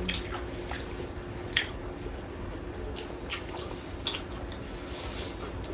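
Wet chewing and lip-smacking of people eating whole chicken with their hands, with scattered short clicks.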